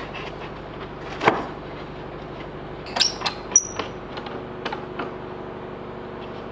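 Bar clamps being fitted around a plywood drawer box on a workbench. A wooden knock comes about a second in, then a quick cluster of sharp metallic clicks and clinks from the clamps, one ringing briefly, and a couple of lighter taps after.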